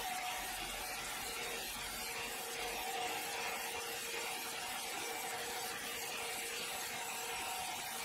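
Electric horizontal band sawmill's blade cutting lengthwise through a log, a steady rasping saw noise with a steady hum from the machine underneath.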